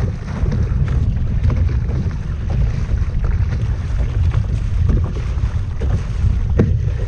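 Wind rumbling on the microphone, with short water splashes from a kayak paddle being stroked hard to speed up through the surf zone.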